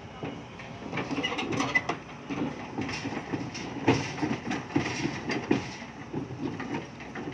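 Steel crawler tracks of a Sumitomo hydraulic excavator clanking and rattling as it climbs onto the steel loading ramp of a self-loader truck, an irregular run of knocks that starts shortly after the beginning and is loudest around the middle.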